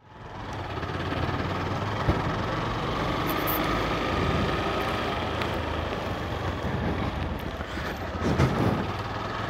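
Motorcycle engine running steadily with road and wind noise while riding, fading in over the first second.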